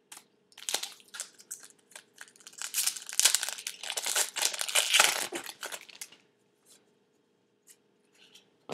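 Foil wrapper of a SP Authentic football card pack being torn open, with a dense crackling and crinkling that is loudest in the middle and stops about six seconds in.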